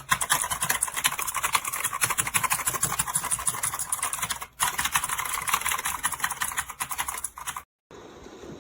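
Fast typing on a computer keyboard: a dense run of key clicks that pauses briefly about halfway and cuts off near the end.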